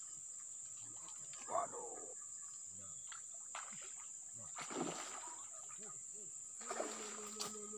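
Insects droning with a steady high-pitched buzz, with a couple of short rushing noises about five and seven seconds in and a low steady hum coming in near the end.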